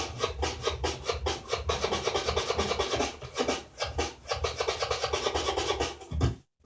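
DJ scratching on a Gemini CDT-05 Pro hybrid CD turntable: fast back-and-forth scratches chopped into short cuts by the crossfader over a beat, stopping abruptly near the end.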